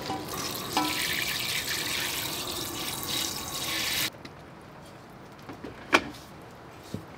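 Water spraying from a hand-held hose nozzle into a stainless steel pot, a steady hiss that cuts off suddenly about four seconds in. A single sharp knock follows a couple of seconds later.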